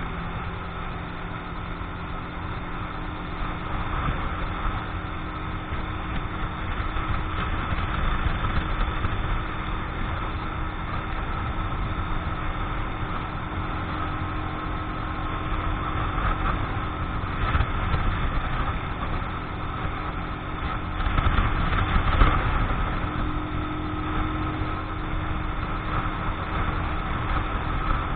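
Keeway X-Light 125 motorcycle engine running steadily while cruising at about 65 km/h, heard from the rider's seat with constant wind rush over the microphone. The bike is new and still being run in.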